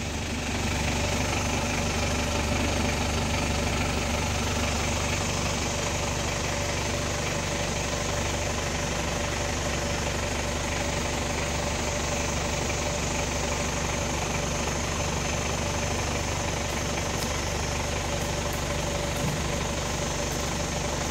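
Safari vehicle's engine idling steadily, a continuous low hum.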